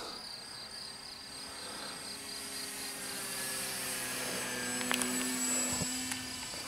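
Electric motor and propeller of a Multiplex Pilatus PC-6 Turbo Porter RC model plane in flight, a steady whine that swells to its loudest about five seconds in as the plane makes a low pass, then eases off.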